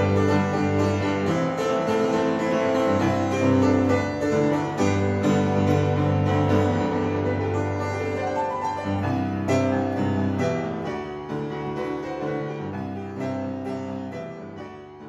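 Instrumental background music led by a keyboard, fading out over the last few seconds.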